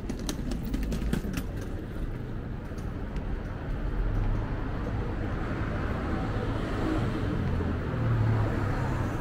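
Street traffic with a car passing: engine rumble and tyre noise swell from about halfway through and stay up until near the end.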